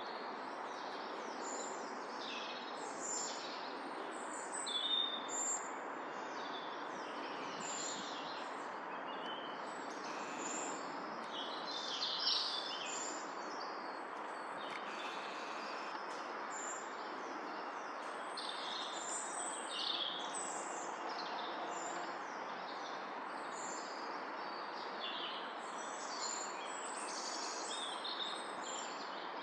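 Songbirds singing, with many short high phrases overlapping throughout, over a steady background hiss.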